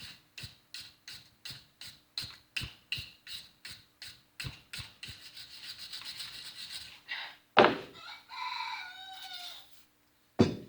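A wire brush scrubs rust off steel pliers in quick, even strokes, about three a second. About seven and a half seconds in there is a loud knock, then a rooster crows once with a falling call, and another knock comes near the end.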